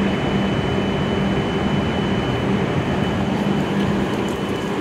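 A stationary E7 series Shinkansen train humming at the platform: a steady, even hum and rush from its onboard equipment, with a thin high whine that fades out after about three seconds.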